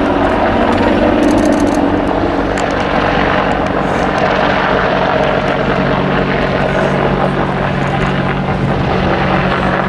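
British Army Boeing AH-64 Apache attack helicopter flying, its rotors and turbine engines making a loud, steady drone with a low hum.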